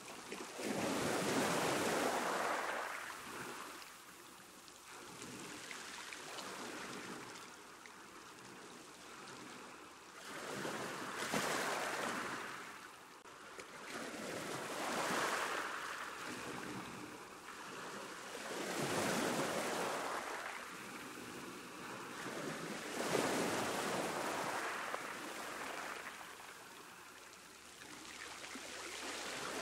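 Sea waves breaking on a beach: five swelling rushes of surf, each fading back to a softer wash, a few seconds apart, with another building near the end.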